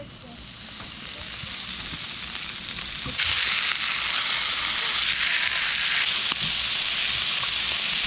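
Meat sizzling in a hot pan: a steady frying hiss that grows louder over the first three seconds, then holds loud and even.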